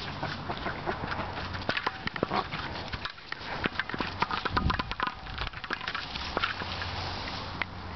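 A dog making a run of short, irregular sounds as it chases and pushes a large ball across grass and a path.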